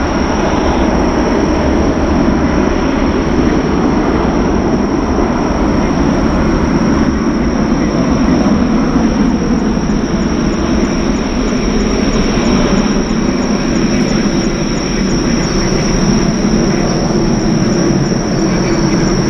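Boeing 757-200 freighter's twin jet engines at high thrust on the takeoff roll: a loud, steady rushing noise with a thin high whine running through it.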